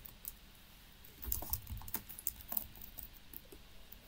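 Typing on a computer keyboard: faint, irregular key clicks with a few louder taps.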